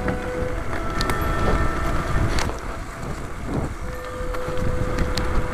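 Wind on the microphone and the rumble of mountain bikes rolling over a wet, slushy road. A steady high tone runs near the start and again through the second half, with a few sharp clicks.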